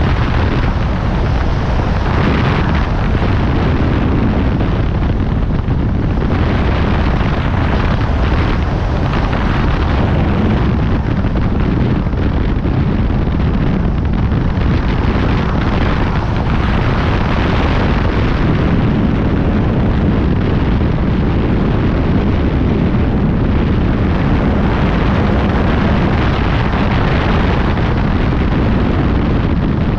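Loud wind noise buffeting the microphone of a wing-mounted camera over a light single-engine propeller plane running steadily in flight. The noise swells and eases every few seconds.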